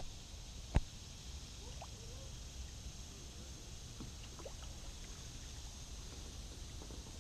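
Kayak paddling: one sharp knock about a second in, such as the paddle striking the plastic hull, then faint trickling of water off the paddle.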